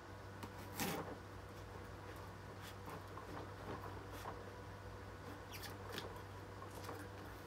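Kitchen knife scraping and slitting packing tape on a cardboard shipping box: scattered scratches and small clicks, with one louder scrape about a second in.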